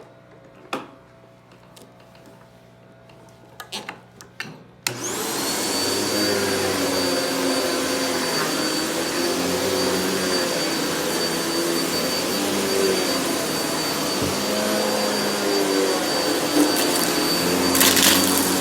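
A few light clicks and knocks, then a vacuum cleaner switches on about five seconds in, spins up to speed and runs steadily with a high whine. Near the end there is a brief crackling burst as crunchy debris is sucked up.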